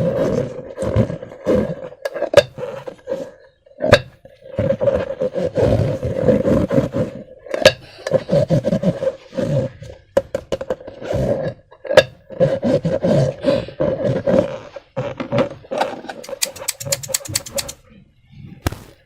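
Balloons and slime being handled: a loud, rough, sustained squeal with a steady pitch, broken by short pauses and sharp clicks, ending in a quick run of clicks before it stops.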